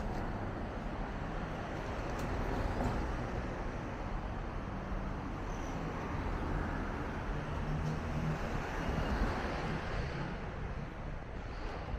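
City street traffic: cars and SUVs driving past close by, a steady rush of engines and tyres that swells as each one goes by.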